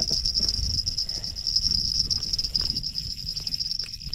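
Fishing reel's drag buzzing steadily as a hooked burbot runs and pulls line off the spool, with low rumbling handling noise underneath. The buzz cuts out briefly near the end.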